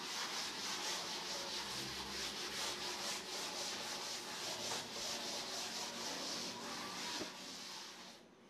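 Blackboard duster rubbing chalk off a blackboard in rapid back-and-forth strokes, a steady scratchy scrubbing that dies away about a second before the end.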